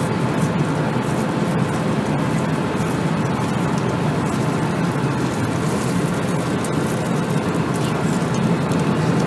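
Steady in-flight cabin noise of an Airbus A320 airliner: an even, unbroken rush, heaviest in the low range, with faint steady tones above it.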